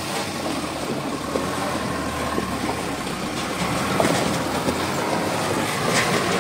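Truck engine running with a low steady hum, with scattered knocks and rattles from the vehicle on rough ground. The sharpest clacks come about four and six seconds in.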